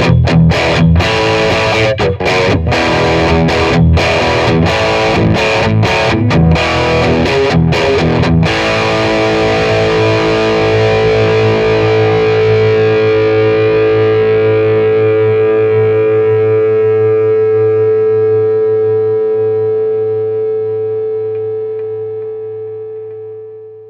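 Eko DV-10 electric guitar played through a Vox Cambridge 50 amplifier with distortion: chopped rhythm chords with short stops between them. About eight seconds in, a final chord is left to ring and slowly fades out.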